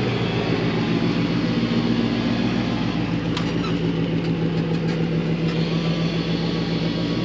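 An engine running steadily at a low, even speed.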